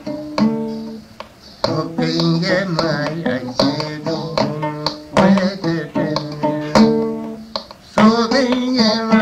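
Music: plucked string instruments with hand percussion; a singing voice with wavering, ornamented notes comes in about two seconds in.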